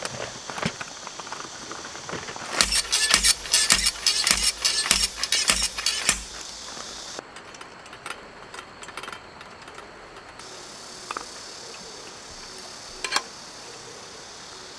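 A rapid clatter of small hard objects knocking and clinking together, lasting about three and a half seconds, then a single click near the end.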